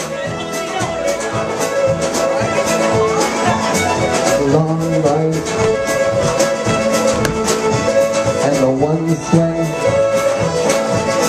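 Contra dance music with a fiddle carrying the tune over a steady, even beat.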